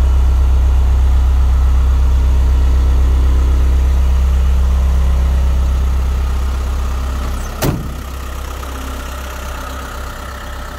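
Toyota Land Cruiser BJ43's diesel engine idling steadily with a deep, even hum. It grows quieter past the middle, and a single thump of a car door shutting comes near the end.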